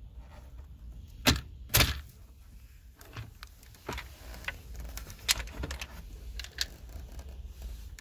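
Plastic wiring connector on a BMW F30 automatic gear shifter assembly being unplugged. Two sharp clicks come about half a second apart as the side latches are squeezed and the plug comes free. Lighter plastic clicks and rattles follow as the loose connector is handled.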